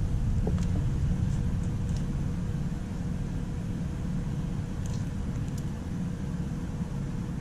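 Steady low mechanical rumble and hum, like a motor or engine running, with a few faint small ticks.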